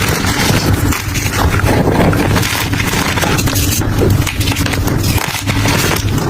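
Brittle, crumbly material being crushed and crumbled close to the microphone, a dense, continuous run of crunching and crackling.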